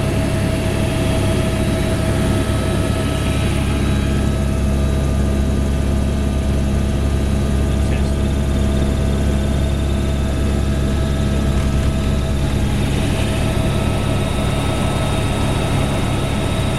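Helicopter engine and rotor running steadily: a loud, constant drone with a deep hum and several steady tones.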